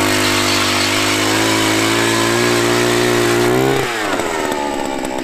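Gas-powered ice auger engine running at full throttle while drilling a hole through the ice, its pitch creeping slightly upward, then dropping to a lower idle about four seconds in as the throttle is let off.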